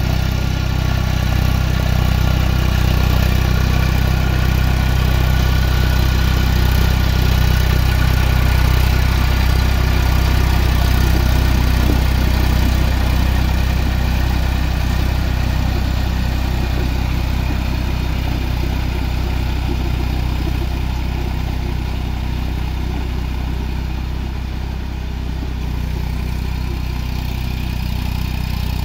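Eicher tractor's diesel engine running steadily at an even speed while it pulls a rotary tiller through wet mud, growing slightly quieter near the end as it moves off.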